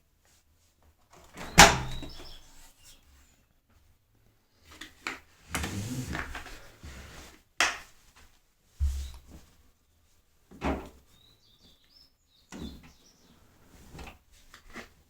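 Household handling sounds while wet towels are loaded into a tumble dryer: scattered knocks and clunks, the loudest a single bang about one and a half seconds in, and a longer stretch of rustling and bumping around the middle.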